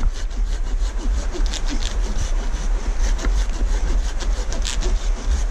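Small hand saw cutting through a small tree with quick, steady back-and-forth strokes.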